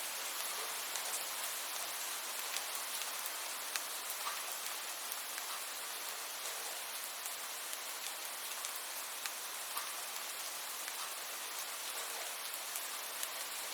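Steady rainfall, an even hiss with scattered sharp ticks of individual drops striking a surface.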